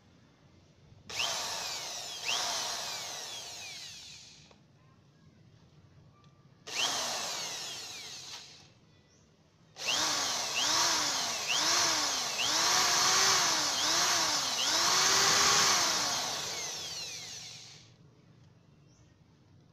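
Electric drill with a keyed chuck drilling out a broken exhaust stud in a motorcycle cylinder head, run in three goes: a few seconds, a short one, then about eight seconds in which its speed rises and dips over and over.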